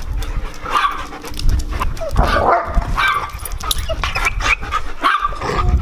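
Several dogs playing together, giving a few short barks and yips over a low rumble.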